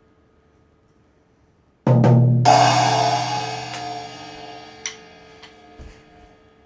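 A rimshot-style "ba-dum-tss": two quick drum hits about two seconds in, then a cymbal crash that rings and slowly fades. A few light taps follow as the ring dies away.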